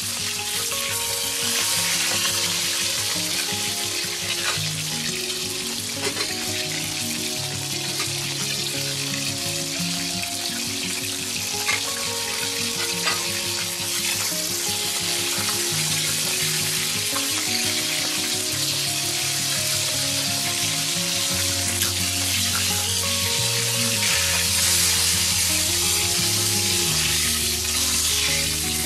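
Battered fish fillets sizzling steadily as they shallow-fry in oil in a wok, with occasional scrapes and taps of a spatula against the pan. A slow background tune plays underneath.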